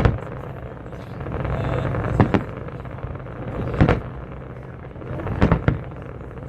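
Fireworks going off: short sharp bangs every second or two, some in quick pairs, over a steady background noise.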